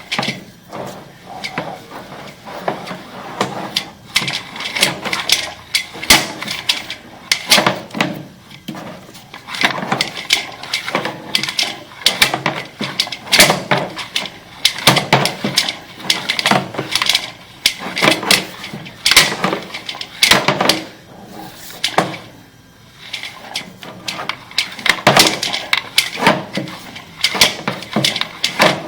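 Sewer inspection camera's push cable being fed by hand into a cleanout pipe, rattling and knocking irregularly several times a second, with scrapes between the knocks.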